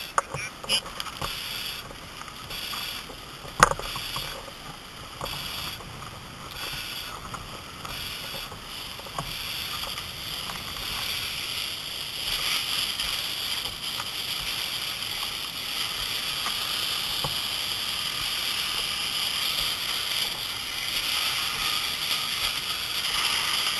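Fire hose stream hitting a burning car, a hiss of spray and steam. It comes and goes at first, then holds steady and louder from about halfway through. A single sharp knock about four seconds in.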